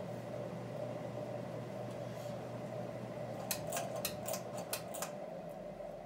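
A circa 1939–40 General Electric T-78218 top-mount ceiling fan running on high speed, about 180–190 RPM: its shaded-pole motor gives a steady hum, with air noise from the two blades. From about three and a half seconds in there is a quick run of sharp clicks.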